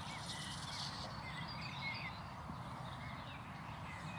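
Quiet outdoor ambience with faint birds chirping now and then, mostly in the first half.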